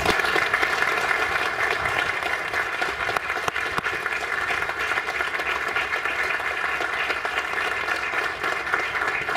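An audience applauding: many people clapping together in a steady round of applause.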